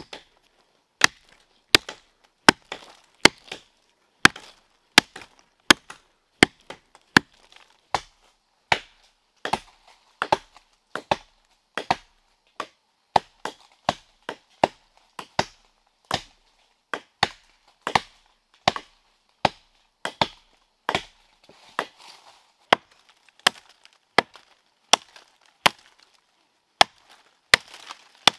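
Wood being chopped with a blade, one steady strike about every 0.8 s with a few lighter blows between.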